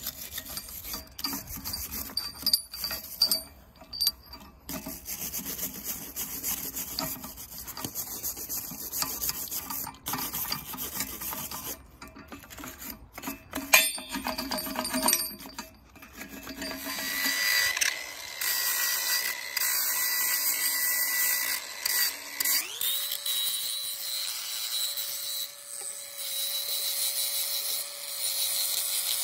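Hand wire brush scrubbing rust off a steel chain clamped in a vise, in quick irregular strokes. Later a louder steady power-tool noise sets in, and about three-quarters of the way in an angle grinder spins up with a rising whine and runs at a steady pitch.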